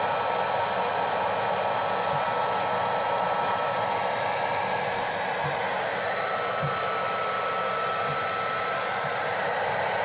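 Hair dryer blowing steadily into a deep freezer's interior to melt the ice build-up, a continuous rush of air with a faint steady whine.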